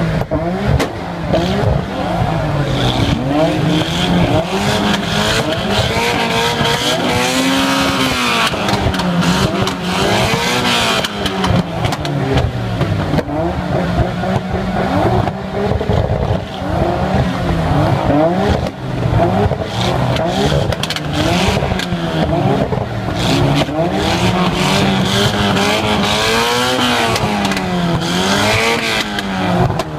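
Nissan RB-series straight-six engine revving repeatedly, its pitch climbing and falling again and again.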